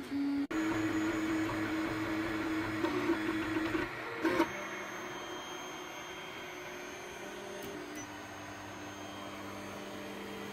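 Anycubic i3 Mega 3D printer's stepper motors whining as the print head moves: steady tones that shift pitch in steps as each move changes, with a short click about four seconds in.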